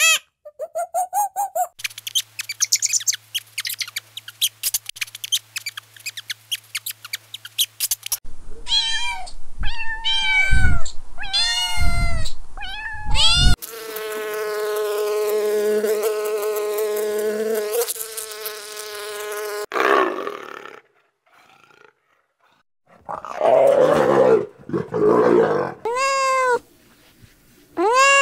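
A string of different animal calls: fast clicking chatter for several seconds, then a run of short rising-and-falling calls, one long steady call of about six seconds, rough harsh calls, and a cat meowing near the end.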